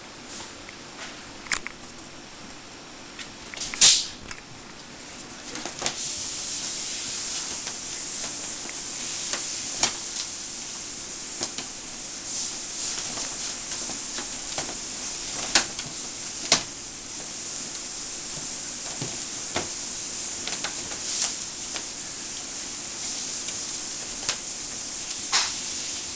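A crinkly fabric cat tunnel rustling and crackling as a miniature dachshund plays in it. A few sharp crinkles come first, then from about six seconds in a continuous high rustle with scattered sharper crackles.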